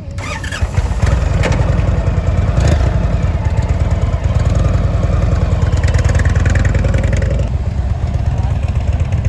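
Indian Chieftain Dark Horse's Thunder Stroke 116 V-twin engine running, loud and low, with a couple of short revs in the first few seconds. Its sound changes about seven and a half seconds in, as the bike rolls away at low speed.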